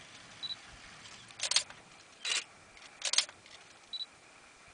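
Camera shutter clicks, three of them about a second apart, with two short high beeps, one before and one after.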